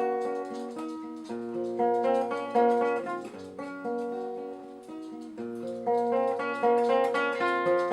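Acoustic guitar playing an instrumental interlude between verses of a song: picked and strummed chords with a steady series of note attacks.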